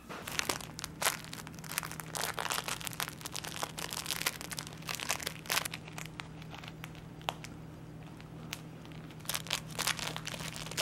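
Corgi puppy chewing a soft plush fox toy: an irregular run of crinkling and crunching from the fabric as he gnaws it.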